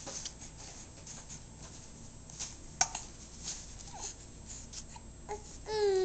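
A baby cooing: a short vocal sound, then a longer drawn-out vowel that falls in pitch near the end. Before it, faint rustles and clicks of the play gym's hanging toys being batted by hand, with one sharp click about three seconds in.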